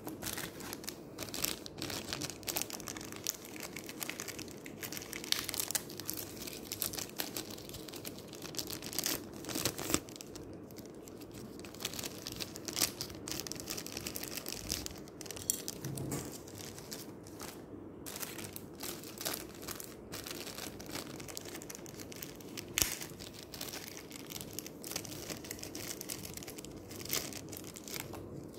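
Thin plastic packaging bags crinkling and rustling as they are handled and opened by hand, with irregular crackles and occasional tearing.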